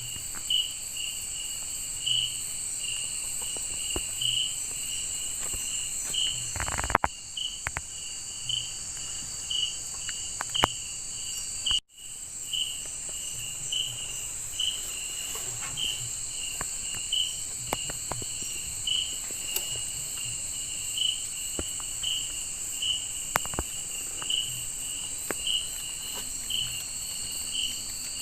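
Night insect chorus in a tropical forest: a steady high buzzing from several insects, with one insect chirping repeatedly, about one and a half chirps a second. A few faint clicks are heard, with a louder knock about seven seconds in.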